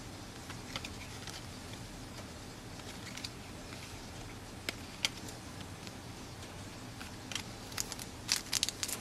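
Trading card packs and cards being handled: scattered faint clicks and rustles, then a run of wrapper crinkling near the end.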